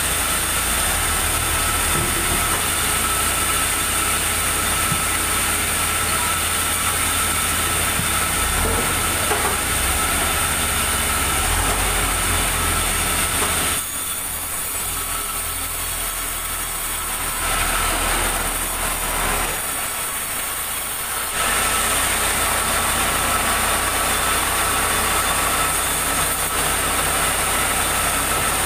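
Sawmill wood-cutting machinery running steadily with a constant high whine. It drops quieter about halfway through and picks up again to full strength some seven seconds later.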